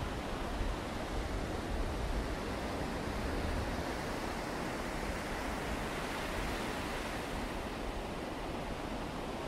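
Steady rush of sea surf washing onto the beach, with a low rumble of wind on the microphone.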